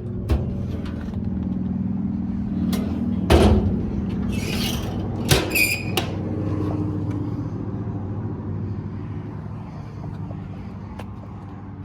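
The 2005 Ford F750's 5.9 Cummins inline-six diesel idling steadily, with a loud thud about three seconds in and a couple of short hisses a second or two later.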